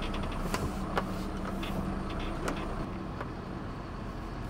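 Diesel engine of a truck tractor unit running as the truck rolls slowly over paving, a steady low hum that fades gradually, with a few sharp clicks in the first half.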